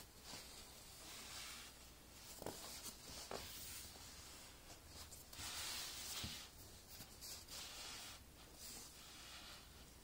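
Faint rubbing and rustling of a cushion's smooth fabric cover being handled and turned over, with a few soft knocks.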